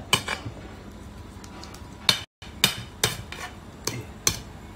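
Repeated sharp metallic clinks of kitchen utensils against dishes, about two a second, with a brief gap a little past two seconds in.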